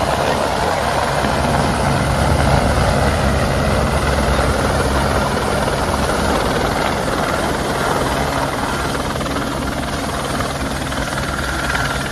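Helicopter hovering low overhead, its rotor throbbing steadily over loud, even downwash noise.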